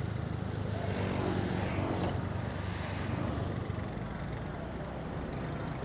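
Steady low hum of the vehicle's engine while driving along a road, with a louder rushing sound that swells and fades about one to two seconds in.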